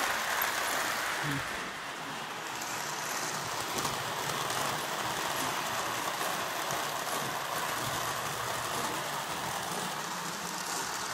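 Marx 333 toy steam locomotive running slowly at low voltage around O-gauge track, pulling its tender and freight cars: a steady whirring of its electric motor and rolling rumble of wheels on the rails.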